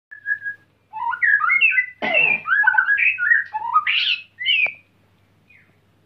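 White-rumped shama singing in its cage: a fast run of varied whistled phrases, many of them rising, with one harsher, noisier note about two seconds in. The song stops a little before five seconds in.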